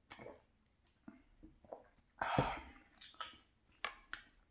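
Small clicks and knocks from a glass bowl being handled and set down on a wooden board, mixed with chewing and lip smacks, and one louder breathy rush about two seconds in.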